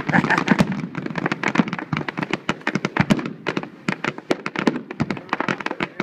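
Fireworks going off in a rapid, continuous barrage: a dense, irregular run of pops, bangs and crackles, many a second.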